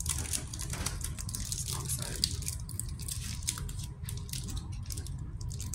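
Foil wrappers of Pokémon trading card booster packs crinkling and tearing as they are opened, with many quick crackles, and cards handled in between.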